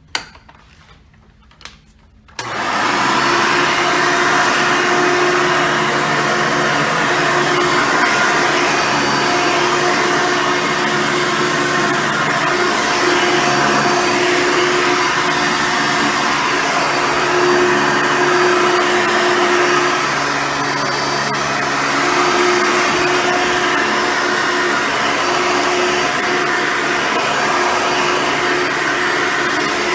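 Hoover Soft & Light Supreme upright vacuum with its original 7-amp motor switching on about two seconds in, then running steadily with a motor whine whose strength shifts slightly as it works.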